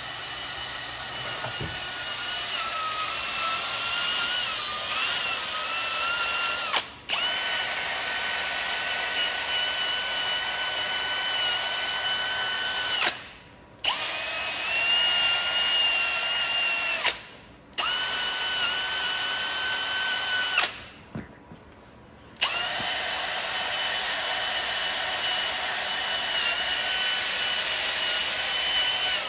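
Cordless drill spinning bolts out of the front of an LS V8 engine block, its motor whining steadily in five long runs with short stops between them.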